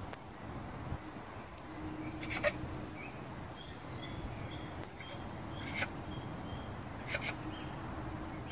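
Honey badger giving short, sharp calls, three in all, each a quick double, spaced one to three seconds apart, over a steady low background.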